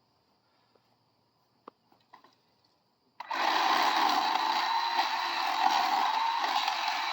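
Chainsaw cutting bamboo: it comes on suddenly about three seconds in and runs steadily at one pitch, after a few faint clicks.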